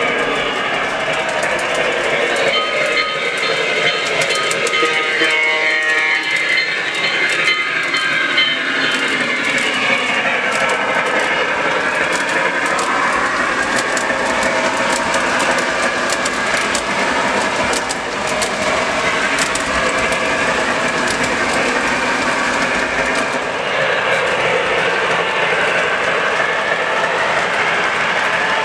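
O scale three-rail model passenger train running on its track, wheels clicking steadily over the rail joints. A few seconds in, the steam locomotive's electronic sound system gives a held whistle for several seconds.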